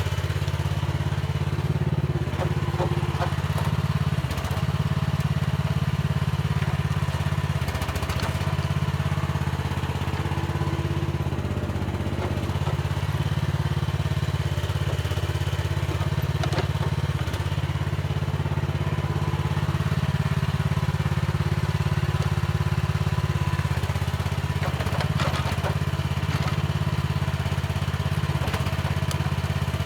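Mini excavator's engine running steadily under working load, with the hydraulics shifting slightly and a few brief clanks from the machine working the soil.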